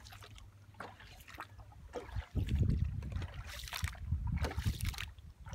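Coracle paddle strokes: the paddle dipping and pulling through lake water, with splashing and trickling drips several times over. A loud low rumble comes in about two seconds in and stays.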